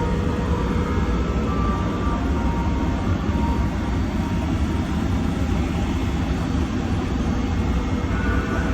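Haas TL15 CNC lathe running, a steady mechanical drone heavy in the low end with a constant hum and faint higher tones.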